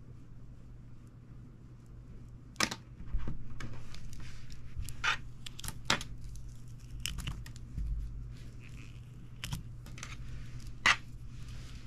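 Hands handling toy coil springs on a wooden tabletop: scattered sharp clicks and brief rustling, the loudest click about a second before the end, over a steady low hum.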